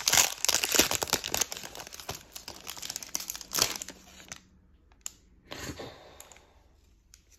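Foil Pokémon booster-pack wrapper crinkling, with tearing sounds, as the pack is opened and its cards handled. The crackling dies down after about four seconds, and one more short rustle comes near six seconds.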